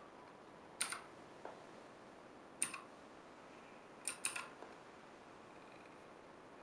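Clicky Gateron Blue mechanical key switches pressed one at a time: a sharp click about a second in, another near three seconds, then two in quick succession about four seconds in, with a few fainter ticks between.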